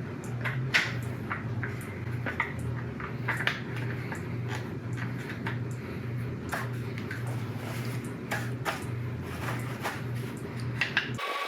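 Light metallic clicks, taps and clinks of hand tools and engine parts being handled during LS V8 lifter and valvetrain assembly, over a steady low pulsing hum that cuts off abruptly just before the end.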